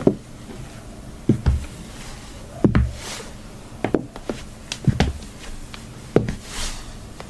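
High-heeled shoes tapping and clacking on a hard floor in an uneven pattern of single and paired knocks, with two brief swishes between them.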